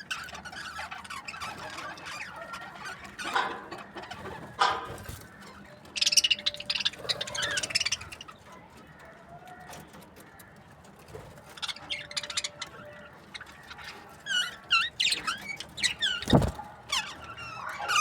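Budgerigars chirping and chattering in bursts of short, high twitters. A single sharp knock sounds about three quarters of the way through.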